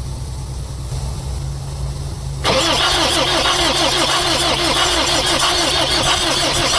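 Cummins ISF 3.8 diesel engine turning over on its starter, a fast, even chugging rhythm with hiss that starts suddenly about two and a half seconds in, over a steady low hum.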